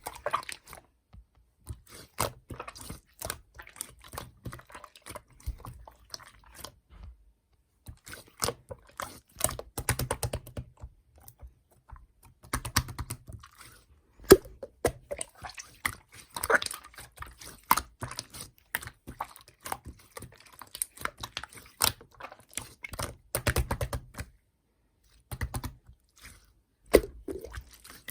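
Slime being kneaded and pressed by hand, giving off bursts of rapid little clicks and pops, with a few short pauses between handfuls.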